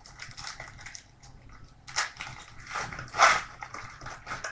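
A stack of glossy chrome-finish football trading cards being flipped and slid against one another: a run of dry, scratchy swishes, with two louder swipes about two and three seconds in.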